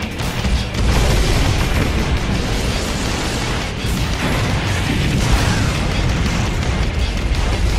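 Anime battle sound effects: rumbling explosions and blasts over dramatic background music, growing louder about a second in.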